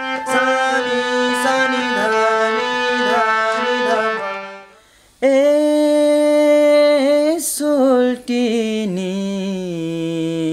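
BINA harmonium played in sustained chords with a stepping melody, fading out after about four and a half seconds. A man's voice then comes in abruptly, singing long held notes with slides between them.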